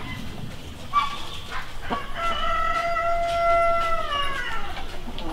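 A rooster crowing once: one long call that holds its pitch and falls away at the end, after a short call about a second in.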